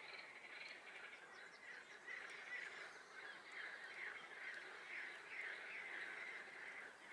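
A chorus of many frogs calling over one another in a swamp, a dense run of rapid, pulsing croaks, with faint bird chirps above.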